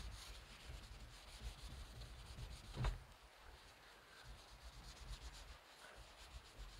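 Cloth or sponge wiping the surface of a small solar panel, a faint rubbing, with one short knock about three seconds in.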